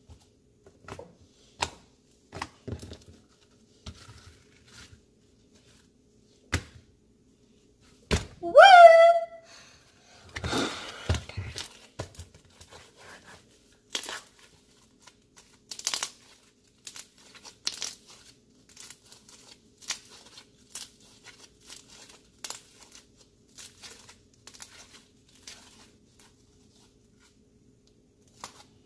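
Homemade glue slime being kneaded and stretched by hand: many short wet clicks, snaps and tearing sounds, which fit a slime the maker thinks is overactivated. The loudest moment is a brief pitched squeak about eight and a half seconds in.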